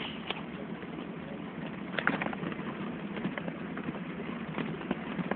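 Maruti Gypsy 4x4 driving up a snow-covered track: steady engine and road noise heard from inside the cab, with irregular clicks and knocks, a cluster of them about two seconds in.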